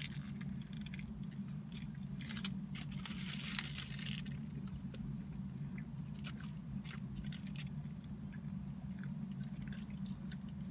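Close-up biting and chewing of a pretzel-bun bacon cheeseburger, with crisp clicks and crackles in the chewing that are densest about three seconds in. A steady low hum runs underneath.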